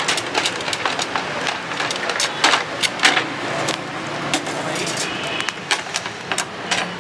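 Metal kebab skewers and a wire grill basket clinking and scraping as they are handled on a charcoal grill, many short sharp clicks over a steady hiss.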